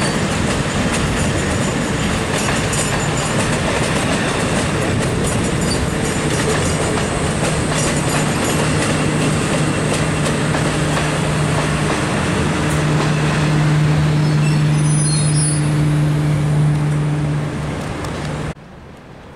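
A heritage passenger train rolling out over the station yard's tracks: a loud, dense rumble and clatter of wheels on rail, with a steady low hum joining about six seconds in. The sound drops sharply near the end.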